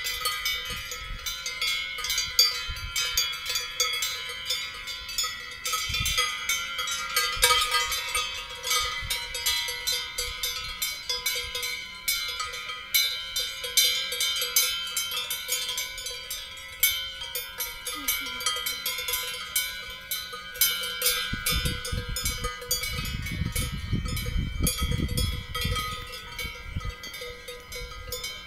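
Many cowbells on grazing cows clanging unevenly and overlapping, the bells ringing at several different pitches.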